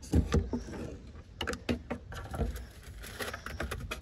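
Irregular knocks and clatter of a fishing rod and reel being pushed against and into a perforated metal trash can, over a low rumble.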